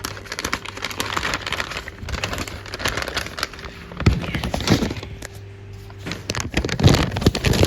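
Stiff stapled cake packaging being pried and pulled open by hand, with rustling and crinkling throughout and sharp cracks and knocks, loudest near the end.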